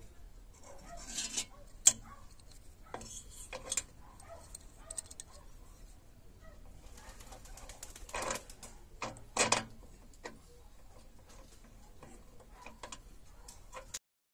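Small steel parts, a flat bracket and a tension spring, handled and set down on a steel workbench: scattered metal clinks and knocks, the sharpest about two seconds in and a few more around eight to ten seconds. The sound cuts off suddenly just before the end.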